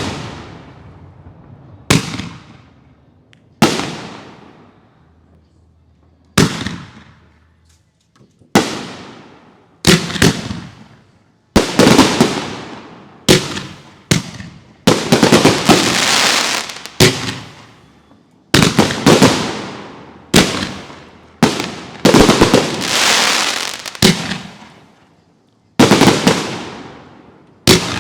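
Aerial fireworks going off in a string of loud booming reports, each followed by a fading crackle. Spaced a second or two apart at first, they come faster and overlap from about halfway through.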